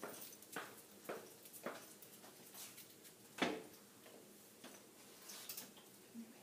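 Footsteps on a tile floor, about two a second at first, then scattered light clicks and one louder knock about three and a half seconds in.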